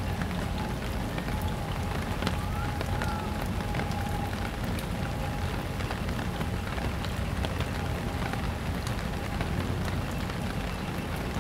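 Steady rain falling on wet pavement, with scattered drop ticks close by and a low rumble underneath. A faint steady tone runs through it.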